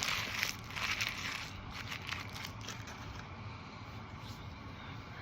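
Paper sandwich wrapper being crinkled and crumpled by hand in a run of irregular crackles, dying away after about three seconds.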